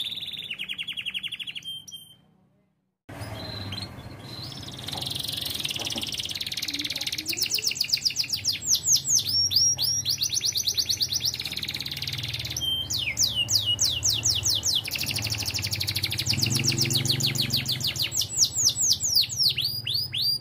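Domestic canary singing fast rolls of rapidly repeated, high, descending notes in a 'ting ting' style song, broken by a second of silence about two seconds in.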